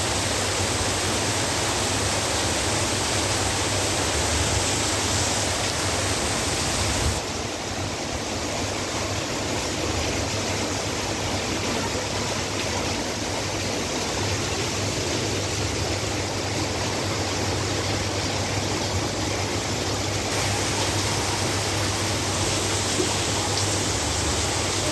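Heavy rain pouring down: a steady, even hiss of falling water. About seven seconds in it drops slightly and turns duller, then brightens again near twenty seconds.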